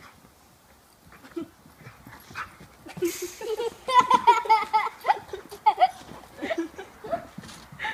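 Black mouth cur whining and whimpering in a run of short, high, wavering cries that start about three seconds in.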